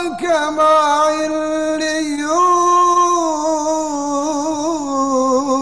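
A man reciting the Quran in melodic, drawn-out tajwid style, singing one long ornamented phrase that steps up in pitch about two seconds in.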